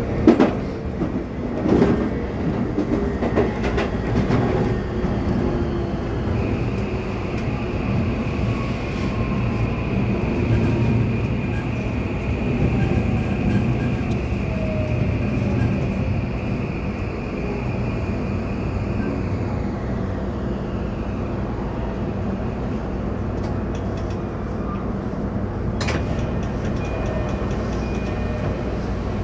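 Toei 5500-series electric commuter train running, heard from inside the car: a steady rumble of wheels and motors with a few knocks in the first seconds. A high steady whine runs through the middle while a lower tone slides down in pitch, and a single sharp click comes near the end.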